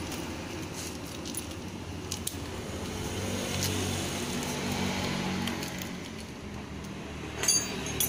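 Small metal tools and parts clinking against each other and the concrete floor, with a sharp cluster of clinks near the end as a wrench is set down. A motor vehicle's engine hums in the background, swelling in the middle and fading.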